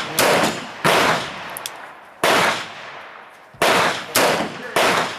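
M1895 Nagant revolver firing 7.62x38R rounds: a string of sharp gunshots spaced roughly a second or so apart, each with a short echo trailing off.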